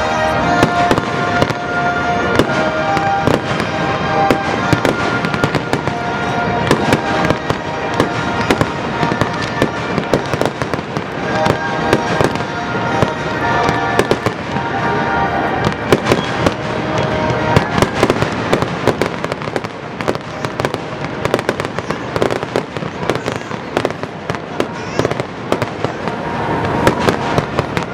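Fireworks display: a dense, irregular barrage of bursts and crackling bangs with no let-up, over music playing underneath.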